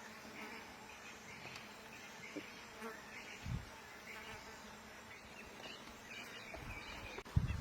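Insects calling in the bush, a faint high chirp repeating every second or so. A brief dull thump comes about halfway through, and low rumbling bursts begin near the end.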